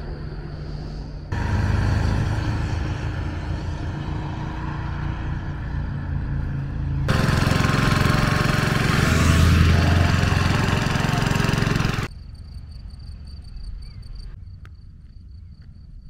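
A motor running with a steady low hum, starting and stopping abruptly between clips and loudest in the middle. About twelve seconds in it gives way to quieter outdoor sound with a steady high insect chirping.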